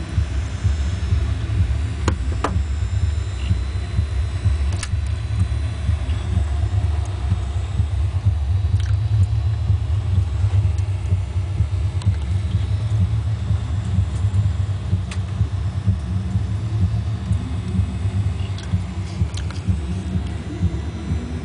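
Running desktop computer's cooling fans giving a steady low drone, with a few faint clicks.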